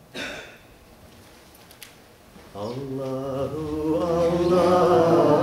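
A man draws a quick breath near the start, then about two and a half seconds in begins chanting in long, held notes that grow louder.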